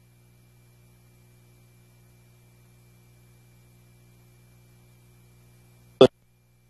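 Faint steady electrical hum with a thin high tone under it, the dead air of a broadcast audio feed; about six seconds in, a single brief loud pop cuts in.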